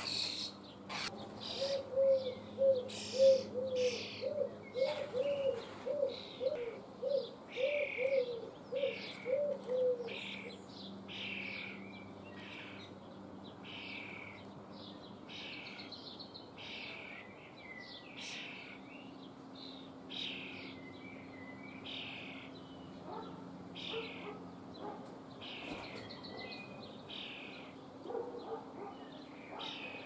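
Common starling nestlings begging from the nest box, giving harsh, rasping calls over and over, about one to two a second, louder in the first ten seconds and softer after. A run of about a dozen low, evenly spaced notes sounds alongside for the first ten seconds, over a faint steady town hum.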